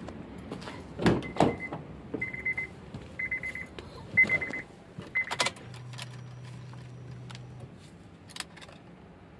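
A car door clunks open, and the 2012 Honda Pilot's warning chime beeps about once a second, five times, stopping with another clunk about five seconds in. A faint steady hum follows for about two seconds, then a single click.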